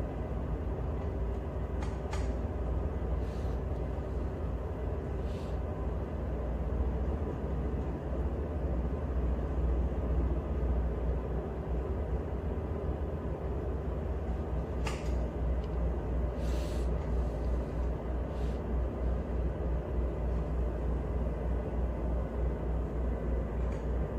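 Tugboat engines running under power, heard inside the wheelhouse as a steady low drone, with a few faint clicks over it.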